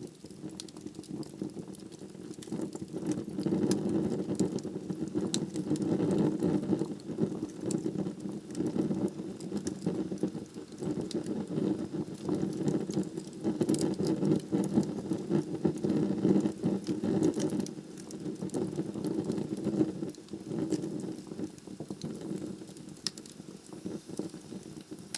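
Wood logs burning in a fireplace: a steady low rush of flame with frequent small crackles and occasional sharper pops. The rush swells a few seconds in and eases again later on.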